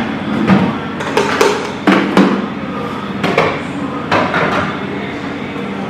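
A series of irregular knocks and clunks of kitchen containers and utensils being handled and set down on a counter, over a steady low hum.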